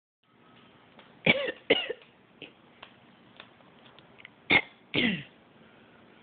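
African grey parrot coughing in imitation of a person: two double coughs, each a pair of quick hacks, about three seconds apart, with faint clicks in between.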